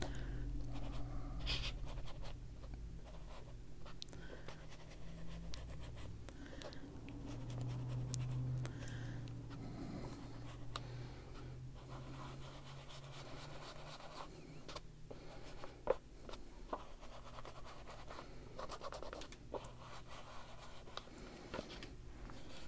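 Soft scratching of a mini foam ink-blending tool rubbed and dabbed over paper and on an ink pad, with scattered small clicks.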